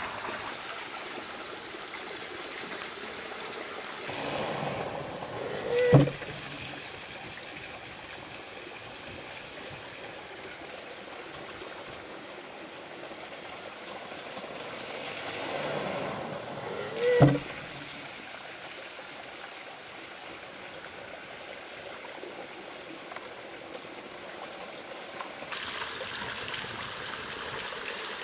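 Water running steadily from a bamboo spout, with two heavy wooden knocks about eleven seconds apart. Each knock comes after a swell of pouring water, as the water-powered monjolo's bucket spills and its wooden pestle drops onto the mortar.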